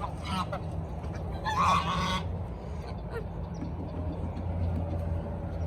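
Domestic geese honking: one loud honk about a second and a half in, with fainter calls around it, over a steady low hum.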